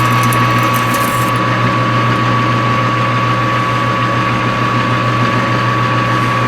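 Machine-tool spindle running steadily at low speed, about 200 RPM: a constant hum with a high steady whine. There is light crackling in the first second or so.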